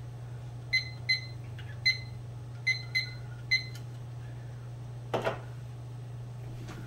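Digital kitchen timer beeping six times as its buttons are pressed to set it, each a short high beep. About five seconds in, a short knock as the timer is put down on the wooden table.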